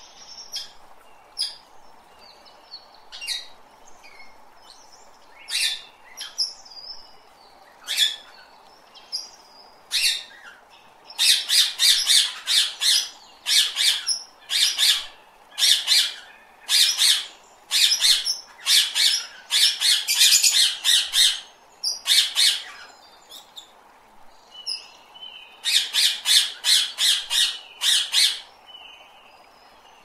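A parrot calling with short, harsh squawks: scattered single calls at first, then long runs of rapid squawks, two or three a second, broken by a short pause before a last run near the end.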